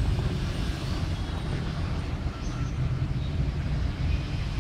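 Steady low rumble and hiss of background noise, with no distinct sound from the clock circuit.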